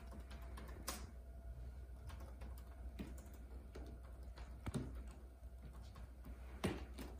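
Persian cat's claws scratching a sisal-rope scratching post: faint, irregular scraping and clicking strokes, a few of them sharper and louder.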